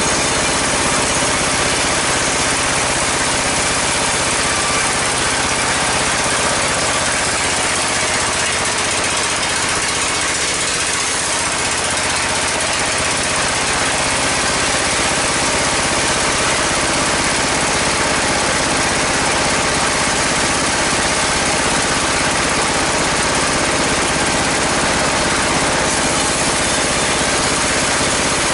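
Engine-driven sawmill bandsaw running steadily.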